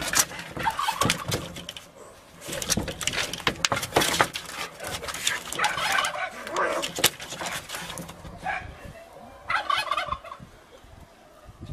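Two cats fighting: yowling and screeching cries mixed with scuffling and claws scrabbling on corrugated roof sheeting. It comes in bursts and dies down near the end.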